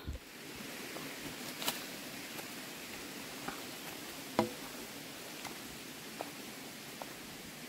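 Quiet forest ambience: a faint steady hiss with a few scattered light clicks and ticks, the loudest about four and a half seconds in.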